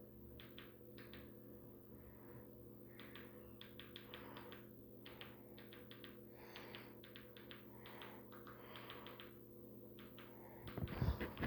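Faint clicking of buttons being pressed, in quick runs of several clicks with short pauses between, over a low steady hum.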